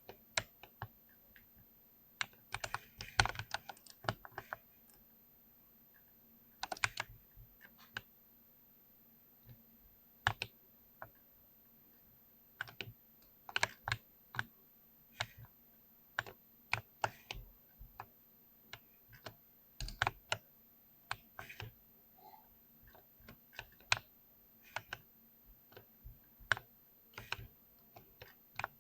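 Typing on a mechanical keyboard: irregular key clicks, some in quick runs and some single, with short pauses between. A faint steady hum sits underneath.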